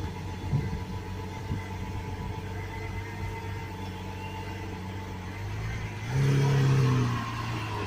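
Lamborghini Aventador S's 6.5-litre V12 idling steadily, then a sharp rev about six seconds in that holds for about a second, dropping slightly in pitch, before falling back to idle.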